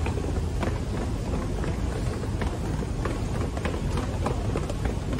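Footsteps going down stairs at a walking pace, about two steps a second, over a steady low rumble of handling and room noise.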